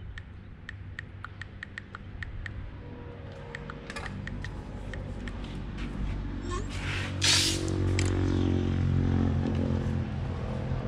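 Masking tape being worked off the roll and pressed onto a paper windshield template: light ticks and crackles, then one short loud rip of tape about seven seconds in. Under it a low machine drone grows louder through the second half.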